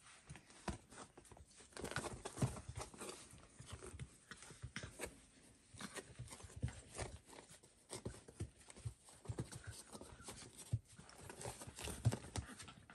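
Labrador puppies about four and a half weeks old scrambling and wrestling on blanket-covered bedding: an irregular patter of small paws with scuffles and light knocks.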